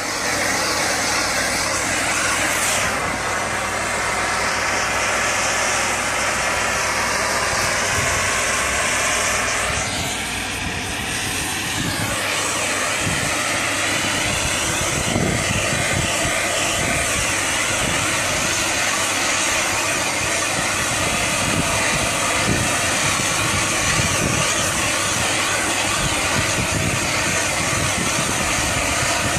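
Oxy-acetylene cutting torch flame burning with a loud, steady rushing hiss, which dips and changes briefly about ten seconds in.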